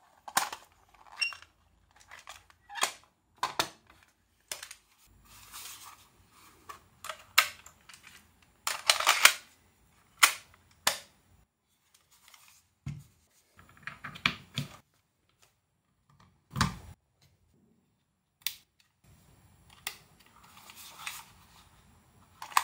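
Irregular plastic and metal clicks and snaps with handling rustle as a cassette tape is taken from its clear case and loaded into a Sony Walkman DD II cassette player.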